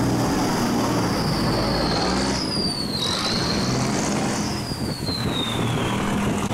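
Barge diesel engine running steadily, with a high thin whine over it that glides up and drops about two to three seconds in, then slides slowly down near the end.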